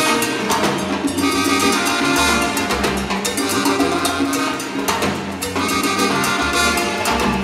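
Live salsa band playing at full tilt, congas and timbales keeping a busy, steady rhythm under held horn-like chords.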